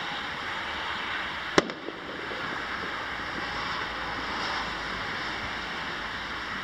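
Steady rushing outdoor background noise, with one sharp crack about a second and a half in and a fainter click just after it.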